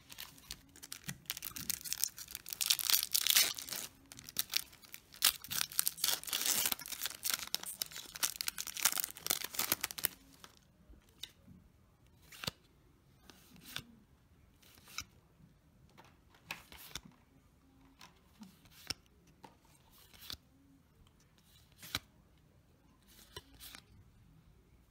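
A foil trading-card booster pack being torn open and crinkled for about ten seconds, followed by the cards inside being flipped through one at a time, a light click roughly once a second.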